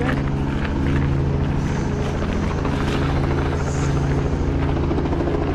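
Helicopter close by, its rotor and engine making a loud, steady drone.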